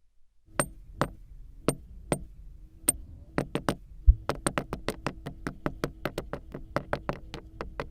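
A run of sharp taps or clicks on a hard surface: a few spaced strikes at first, then a quicker, fairly even run of about five a second, with one deeper thump just before the run starts.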